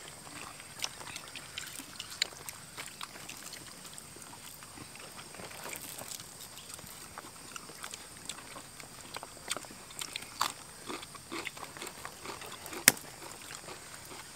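Eating by hand from a shared spread of rice and fried fish: scattered small clicks, taps and rustles of fingers picking at food on plates, with one sharp click near the end.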